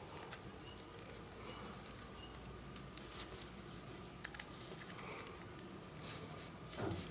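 Faint scattered clicks and rustling of USB plugs and cables being handled and pushed into a small converter box, with a sharper pair of clicks about four seconds in.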